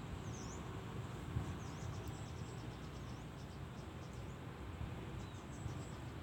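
Outdoor ambience: a steady low rumble with many short, faint, high-pitched chirps repeating over it.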